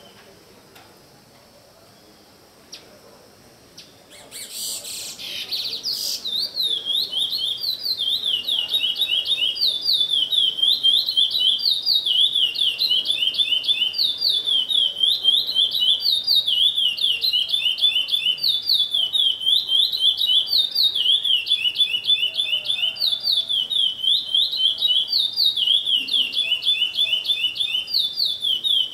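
A caged songbird singing without a break: a fast, steady string of repeated chirping phrases that starts about four seconds in, just after a short rustling burst.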